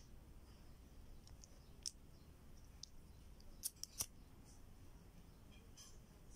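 Disposable flint lighter being struck: a few sharp clicks of the flint wheel, a cluster of them around four seconds in, where the flame catches.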